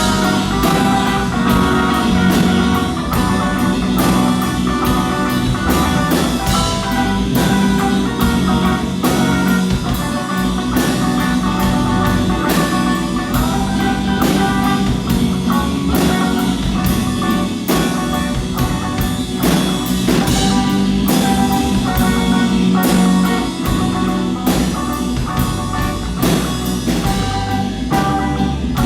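Rock band playing a song: a drum kit keeping a steady beat with electric guitar and other instruments.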